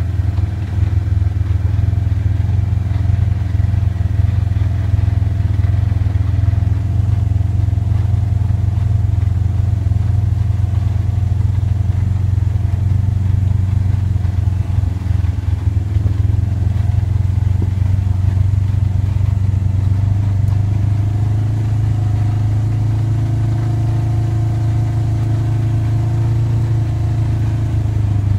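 ATV engine running steadily at an even cruising speed, heard from on board the moving machine.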